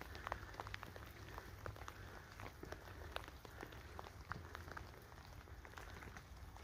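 Light rain pattering: faint, irregular small ticks of drops, several a second, over a low steady rumble.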